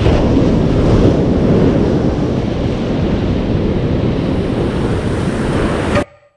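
Atlantic surf breaking and washing up the beach in a loud, steady rush, which cuts off suddenly near the end.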